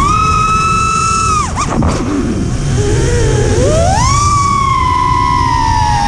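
FPV racing quadcopter's brushless motors and propellers whining, heard from its onboard camera with a low rumble of wind on the microphone. The pitch holds high, drops sharply about a second and a half in as the throttle is chopped, then climbs steeply back up near the four-second mark and slowly eases down.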